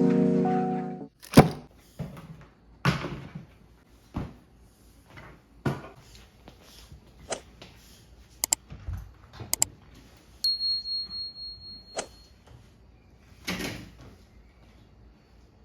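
Music that stops about a second in, followed by scattered knocks and thuds, a few sharp clicks, and a steady high beep lasting about a second and a half just past the middle.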